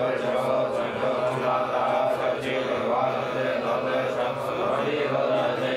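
A group of Buddhist monks chanting a sutra in unison, a steady low drone of men's voices.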